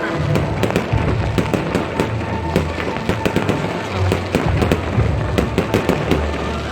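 New Year's fireworks and firecrackers going off continuously, a dense, irregular string of cracks and bangs with no pauses, with music playing underneath.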